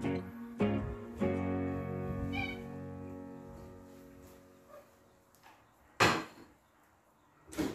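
Background string music fading out, with a domestic cat's short meow about two and a half seconds in. Later, two sharp loud thumps, about six and seven and a half seconds in.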